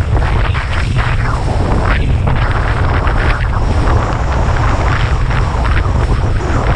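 Strong wind buffeting the microphone while kitesurfing: a constant deep rumble with irregular surges of rushing hiss.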